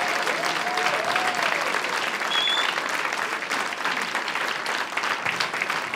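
Audience applauding in a small club, with a few voices calling out over the clapping in the first second and a half and a brief high tone about two and a half seconds in.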